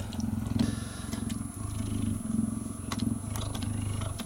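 Adult cheetah purring continuously, a low pulsing rumble that swells and eases in turn, while it licks and grooms a person's scalp. A few faint clicks from the licking come through.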